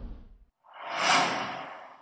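Whoosh sound effect: a rushing noise that swells to a peak about a second in and then fades, following the tail of an earlier swell that dies away at the start.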